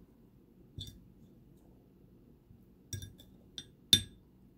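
Metal fork clinking against a ceramic plate while cutting and scooping pie: a light tap about a second in, a few quick taps around three seconds, and the loudest clink near four seconds.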